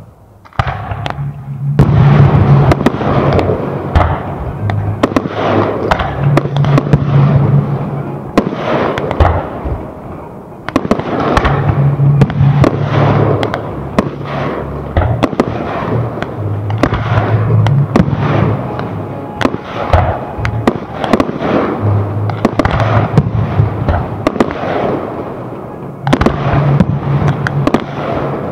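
Fireworks display: aerial shells bursting one after another in a dense run of bangs and crackling. A brief lull comes just at the start, and a shorter one about ten seconds in.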